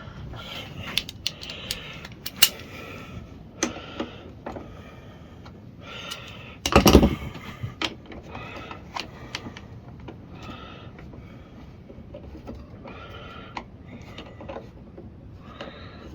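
Hand tools clicking and clinking in short spells as small nuts are done up with a 10 mm socket, with one loud knock about seven seconds in.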